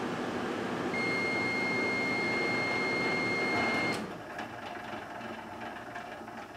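Microwave oven running with a steady hum. About a second in, a high steady beep starts and holds for about three seconds. The beep and the hum then cut off together with a click, and the oven falls silent.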